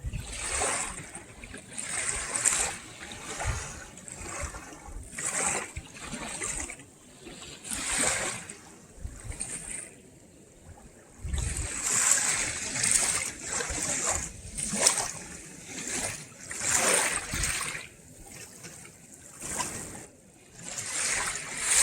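Shallow seawater lapping and splashing at the shoreline in washes about once a second, with a short lull about ten seconds in.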